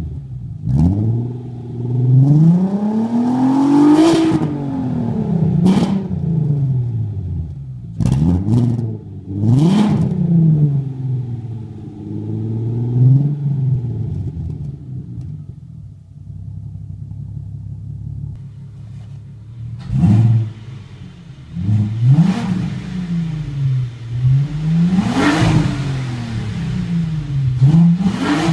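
Volkswagen MK4 GTI's VR6 engine revved repeatedly at standstill through a near-stock exhaust with an aftermarket can muffler, heard at the tailpipe. There are several quick blips that climb and fall back to idle, a few seconds of steady idle in the middle, then more blips toward the end.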